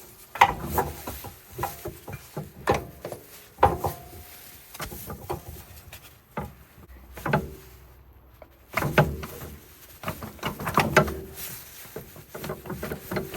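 Irregular knocks and clatter of tools and parts being handled during a CV axle replacement, with a quieter pause a little past the middle.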